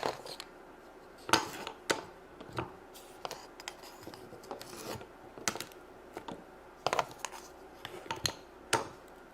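Wooden play food pieces being handled and set down: a dozen or so irregular light taps and clacks with some rubbing in between.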